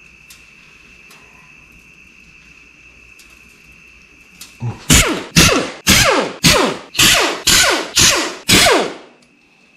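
An engine stand being used to roll an LS V8 block over: about eight loud metallic clacks, roughly two a second, each falling in pitch. A faint steady high whine comes before them.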